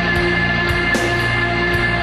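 Rock music with electric guitar and a steady drum beat.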